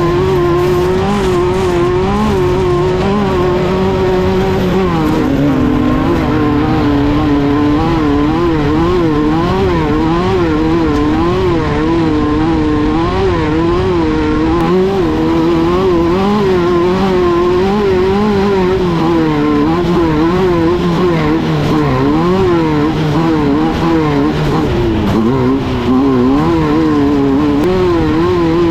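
Air-cooled VW 1600 cc flat-four engine of a Class 1/2-1600 off-road race car running hard, its pitch rising and falling about once a second as the throttle is worked.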